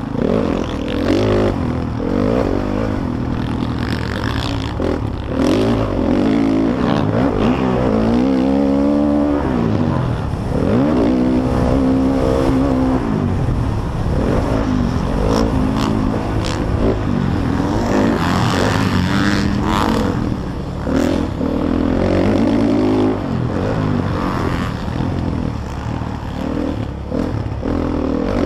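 Motocross bike engine revving hard under race load, its pitch repeatedly climbing and dropping through the gears and on and off the throttle, heard from the rider's helmet.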